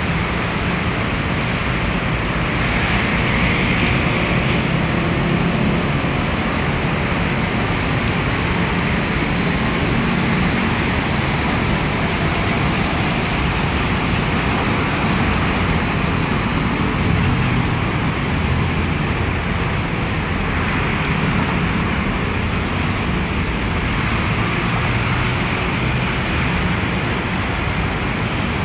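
Steady noise of busy road traffic, a low rumble under an even hiss, with no distinct single event standing out.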